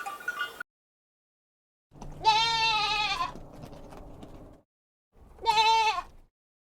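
Goat bleating twice: a longer quavering bleat about two seconds in, then a shorter one near the end.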